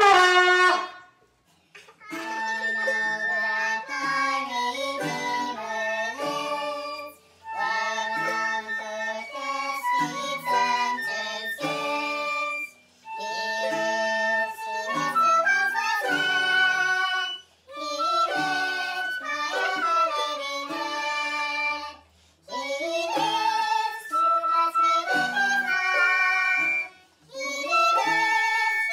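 A trumpet sounds one short starting note, then a family group sings together to acoustic guitar, ukulele and flute, in phrases of about five seconds with short pauses between them.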